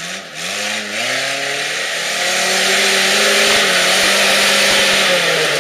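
Suzuki 4x4's engine revving hard under load as it climbs a rutted dirt mound. The revs rise over the first two seconds, hold high, then drop near the end, with a few low knocks from the vehicle in the middle.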